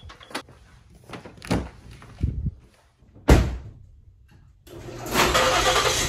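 A few knocks and footsteps, then a door shuts with one sharp thump about three seconds in. Near the end an electric garage door opener starts up, running with a steady mechanical rumble as the overhead door begins to lift.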